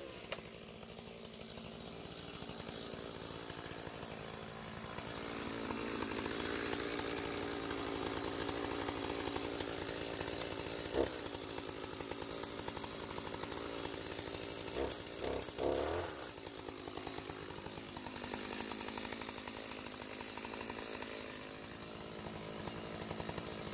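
Stihl chainsaw idling steadily, with its throttle briefly blipped a few times about halfway through.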